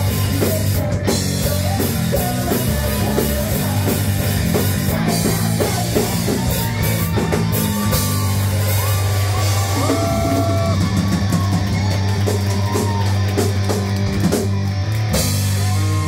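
Live rock band playing: drum kit, electric guitar and bass with a singer's voice over them.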